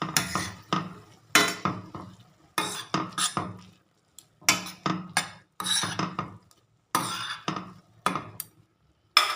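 A utensil scraping and knocking against a pan as pasta in garlic butter sauce is stirred and tossed, in repeated short strokes with brief pauses.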